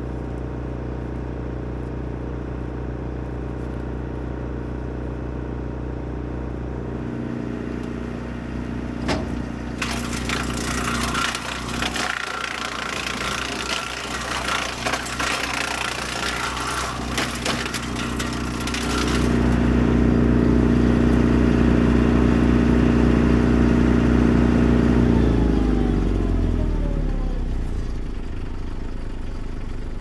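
A PTO-driven Woodland Mills WC88 wood chipper, powered by an 80 hp John Deere tractor, running with a steady engine drone. About ten seconds in there is a harsh grinding crackle for roughly nine seconds as maple branches are fed through and chipped. Then the engine and chipper run louder for several seconds, and their pitch falls as they wind down near the end.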